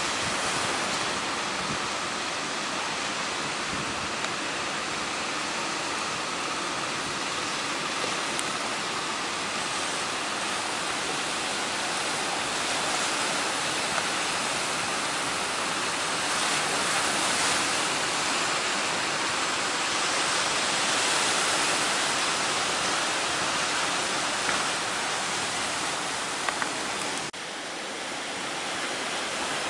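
Heavy surf from high waves and strong wind, making a loud, steady wash of noise, with a brief drop about 27 seconds in.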